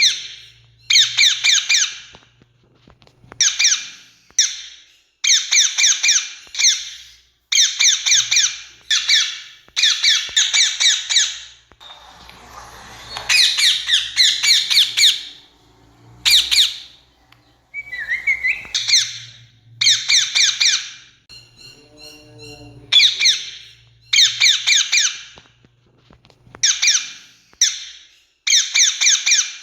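Rose-ringed parakeet (Indian ringneck) giving loud, harsh screeching calls in quick runs of notes, one run every second or two, some runs longer than others.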